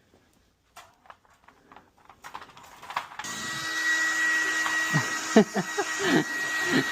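Blow dryer switched on about three seconds in, then running steadily with a constant high whine, drying a dog after her bath. Short, bending vocal sounds come and go over it near the end.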